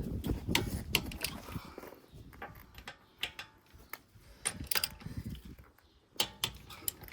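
Irregular sharp clicks and knocks of tools and metal parts being handled, over a low rumble in the first two seconds and sparser later.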